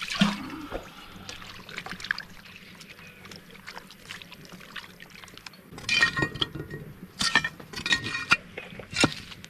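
Liquid pouring and trickling, with scattered clinks and a busier run of clattering strokes in the last few seconds.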